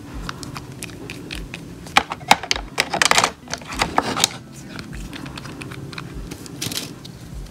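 Gel polish bottles clicking and clacking against each other and the plastic tray as they are picked out of the kit, with a quick flurry of clicks in the middle.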